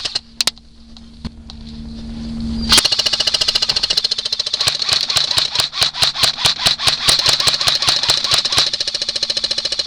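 Airsoft gun firing on full auto: a few single clicks, a short lull, then from about three seconds in a long, rapid, evenly spaced clatter of shots over a steady motor hum.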